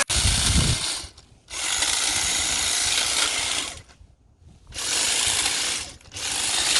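Cordless hedge trimmer run in four bursts of a second or two each, with short pauses between, cutting through thin brush.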